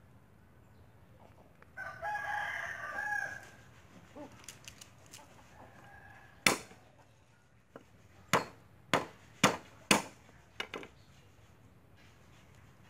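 A rooster crows once, about two seconds in. Later a cleaver smashes garlic cloves on a wooden chopping board: five sharp whacks between about six and ten seconds in, then two lighter knocks.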